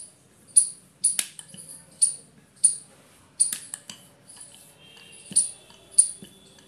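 Wooden rolling pin rolling bhatura dough back and forth on a stone rolling board, giving sharp clicks and knocks at each stroke, roughly two a second and unevenly spaced, with a short lull in the middle.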